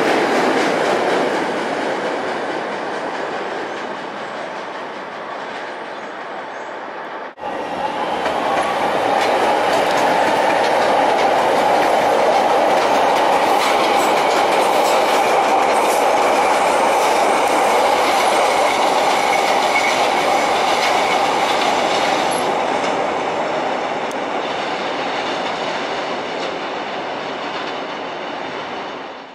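Chicago 'L' rapid-transit trains running on elevated track, wheels clacking over the rails. About seven seconds in, the sound cuts to a second, louder train passage with a steady grinding tone.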